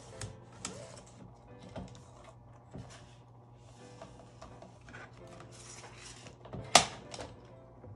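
Laminated card cover and a sliding paper trimmer being handled on a cutting mat: light plastic rustles and scrapes, then one sharp knock a little before the end.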